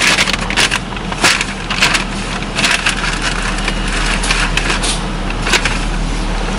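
Irregular crackling and rustling handling noises, many short sharp clicks, over the steady low hum of the car's idling engine.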